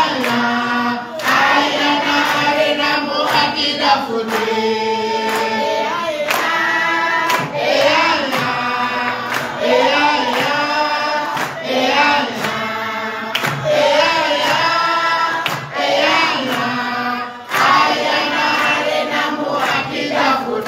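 A crowd singing together in chorus, with hand clapping.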